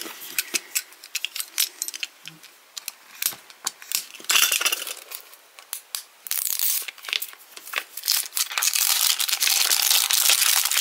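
Cardboard blind box handled and opened, with scattered clicks and taps, then a foil wrapper bag crinkling, nearly without a break, through the second half.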